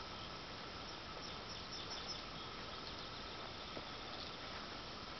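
Steady faint background hiss of ambient noise, with a faint high thin tone and a few faint ticks about two seconds in. No rifle shot.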